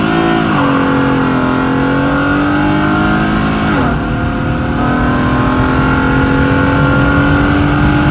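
Acura J32 3.2-litre V6 heard from inside the cabin under full-throttle acceleration through an automatic transmission. The engine note drops at an upshift about half a second in, then climbs slowly in pitch, with a brief dip just under four seconds in.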